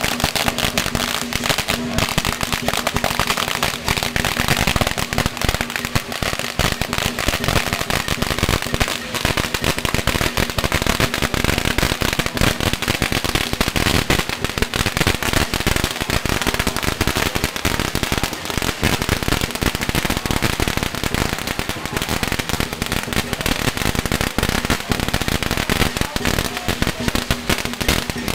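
A long string of firecrackers going off: a dense, unbroken run of rapid sharp pops and crackles, with smoke and sparks climbing the pole as the string burns.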